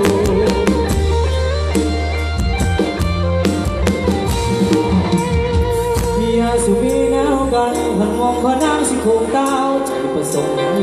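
Live band music played through a large outdoor PA sound system, recorded on a phone: heavy bass under a drum kit and a melodic lead line. The deep bass drops out about three quarters of the way through while the drums and melody carry on.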